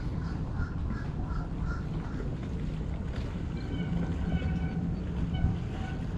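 Wind rumbling on the microphone, with a bird calling in short harsh notes repeated many times: a quick run in the first two seconds, then a fuller series from about halfway.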